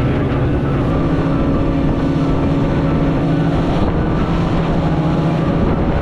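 Speedboat engine running steadily at speed, with water rushing and splashing along the hull.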